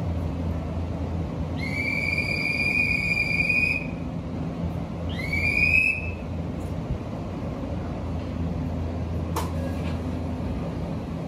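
A whistle blown twice, one long blast of about two seconds and then a short one, over the steady low hum of a stopped Shin-Keisei 8800-series electric train. A sharp click comes near the end.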